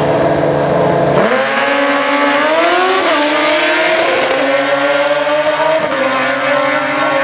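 Two drag-racing motorcycles launching off the line about a second in, then accelerating hard down the strip. Their engine note climbs steadily in pitch and dips briefly at each upshift, about three times.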